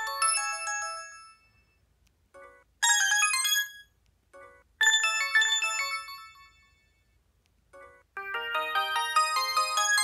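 Samsung SGH-G600 mobile phone's built-in ringtones previewing one after another through its speaker as the list is scrolled: short chiming electronic melodies, several cut off after a second or so, with brief silences between them and a fuller, busier melody starting about eight seconds in.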